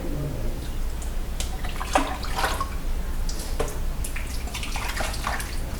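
Dishes being washed by hand in a basin of water, with irregular splashing and dripping and short knocks of the dishes being handled.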